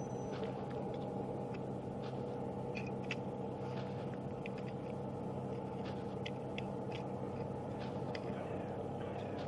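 A steady mechanical hum, like an idling engine, with a few faint clicks; its lowest tones fade out about seven seconds in.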